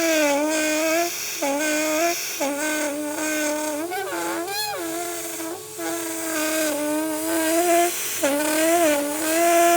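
Henry vacuum cleaner motor running with a steady pitched whine that keeps dipping briefly and recovering, as the nitrile gloves being sucked into the hose choke the suction. About halfway through there is a short wavering squeal.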